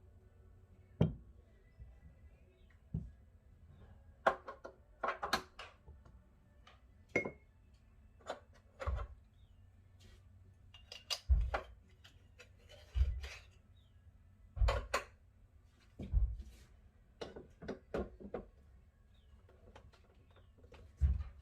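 Scattered knocks, taps and clinks of hard kitchen items being handled and set down, about a dozen over the stretch, several with a dull low thud.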